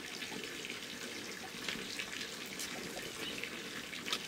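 Water running steadily, as from a tap or pipe, with a few small knocks and splashes.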